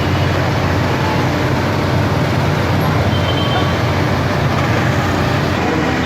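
Steady road traffic noise with a large vehicle's engine running close by.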